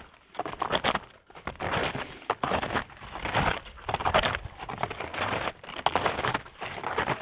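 Snowshoe footsteps crunching into snow at a steady walking pace, one crunch about every three-quarters of a second.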